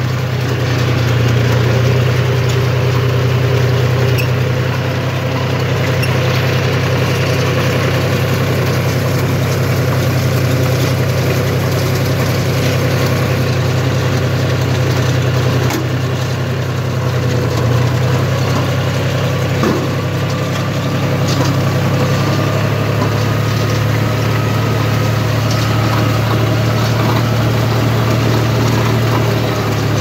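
Tractor engine running steadily while pulling a Redlands straw baler working through rice stubble, a loud, unchanging low engine note mixed with the baler's machinery noise.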